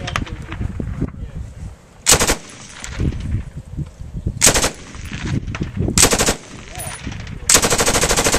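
Polish RPD belt-fed light machine gun, chambered in 7.62×39mm, firing four short full-auto bursts, the last and longest about a second long.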